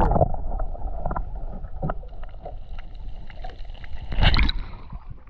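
Muffled water noise from a camera held just under the sea surface: low sloshing and rumbling with scattered clicks, and a louder rush of water about four seconds in.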